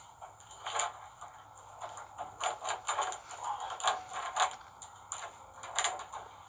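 Irregular clicks, knocks and scrapes of hands working metal hardware on a winch cable with tools.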